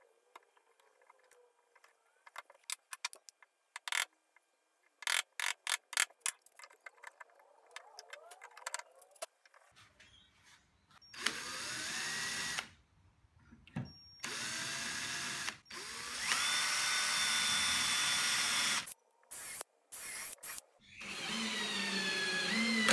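A chisel paring the edges of a recess cut into a hardwood leg end, with light scrapes and clicks. Then, from about eleven seconds in, a cordless drill drives screws through steel screw plates into the leg tops. Its motor spins up in several short runs with brief pauses between.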